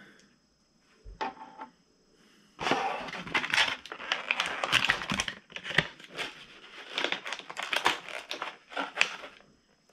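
Plastic toy packaging crinkling and crackling as it is handled, a dense run of small cracks from about two and a half seconds in until near the end.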